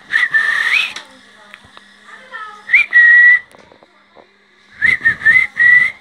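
Loud whistled notes in three phrases: a long even note that rises at its end, a shorter note that jumps up and then holds, and near the end a quick run of four short whistles.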